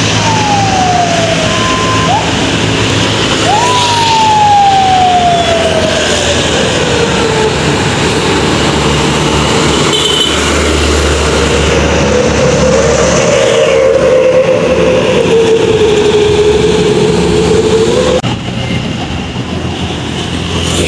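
Fire truck siren on a passing fire-truck convoy: a wail that slides down in pitch, is pushed back up about three and a half seconds in, then slowly falls and wavers until it cuts off sharply about eighteen seconds in. A truck engine rumbles as a fire truck passes close by midway.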